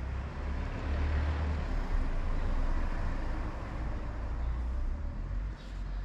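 A motor vehicle driving past on the street: a steady rush of engine and tyre noise with a low rumble that swells about a second in and fades near the end.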